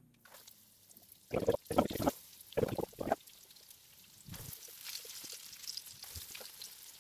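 Battered fennel pieces sizzling in hot oil in a frying pan, the sizzle growing louder about four and a half seconds in as more pieces go in. A cluster of sharp knocks, a fork working against the egg bowl, comes about one to three seconds in.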